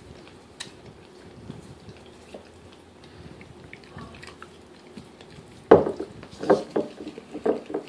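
Golden retriever licking marrow from a bone, soft wet lapping with small clicks. About three-quarters of the way through it starts chewing the bone, a quick run of loud bites, about three a second.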